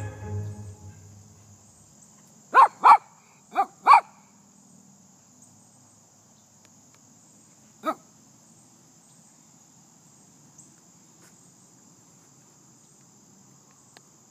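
A dog barks four times in quick succession a few seconds in, then once more about halfway through, over a steady high chirring of insects. Music dies away at the start.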